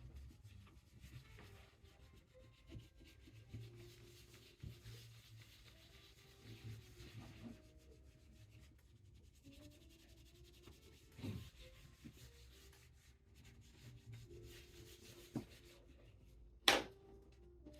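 Hand burnishing of paper on an inked relief printing block: soft, irregular rubbing strokes as the print is rubbed down. A single sharp click comes about a second before the end.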